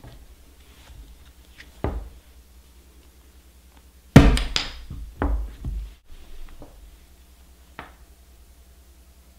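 Sharp knocks of a paperback book striking the back of a knife blade set into a tube of reed cane, splitting the tube to make clarinet reed blanks. A lighter knock comes about two seconds in; the loudest blow is about four seconds in, followed by several quicker, lighter knocks.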